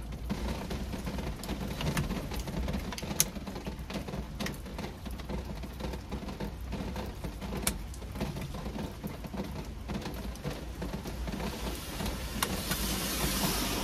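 Light scattered clicks and rustling from handling parts during installation work, over a steady low hum. A hiss builds near the end.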